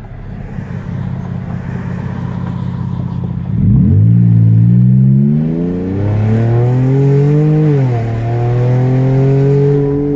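Chrysler 3.6-litre V6 running with its exhaust cutouts right after the catalytic converters, heard from inside the cabin: a steady low drone at first, then the car accelerates hard from about three and a half seconds in, the engine pitch climbing and falling back twice as the transmission shifts up, then holding steady before easing near the end.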